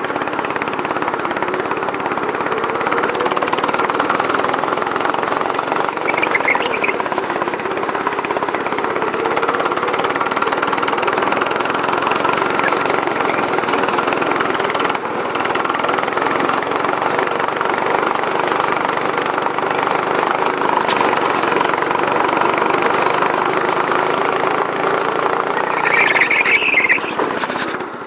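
Go-kart engine running hard, its pitch rising and falling with the throttle as the kart is drifted. Short tyre squeals come about six seconds in and again just before the end, after which the sound drops off.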